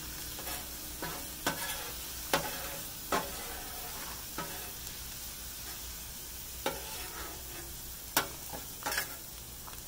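Chopped chicken sizzling on a Blackstone flat-top griddle while a metal spatula scrapes and pushes it across the hot steel into a ring, clearing the middle for eggs. A steady sizzle is broken by sharp spatula scrapes and clacks at irregular intervals, about one a second.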